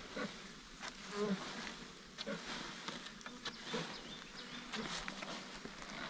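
Insects buzzing, with scattered light clicks and knocks.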